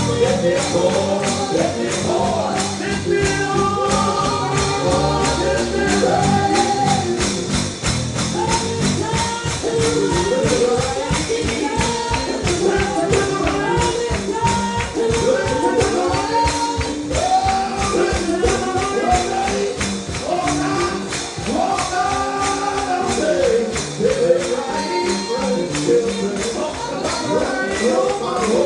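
Gospel singing with a tambourine keeping a steady beat.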